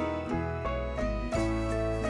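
Background music: an instrumental tune of plucked notes changing about every half second over a steady bass.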